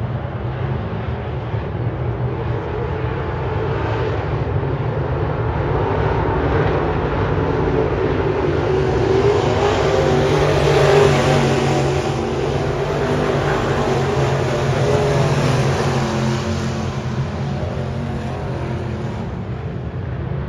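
A field of dirt-track modified race cars running laps at full throttle, their engines blending into one continuous sound that swells loudest about ten to twelve seconds in as the pack passes, then eases off.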